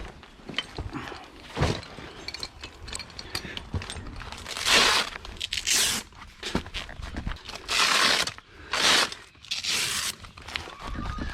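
Five short bursts of rustling, scraping noise with fainter clicks and knocks between them.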